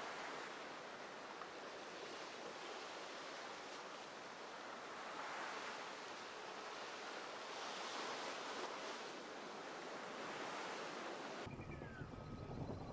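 Steady hiss of food frying in hot oil, swelling and easing every few seconds. About a second before the end it cuts abruptly to a duller, deeper sound.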